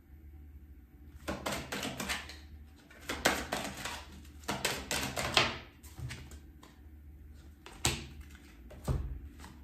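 A deck of oracle cards being shuffled by hand in two bursts of rapid flicking clicks, then two single sharp taps.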